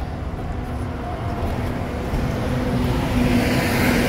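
City street traffic: a motor vehicle's steady engine hum over a low rumble, getting louder about two seconds in as it passes close, with rising tyre hiss near the end.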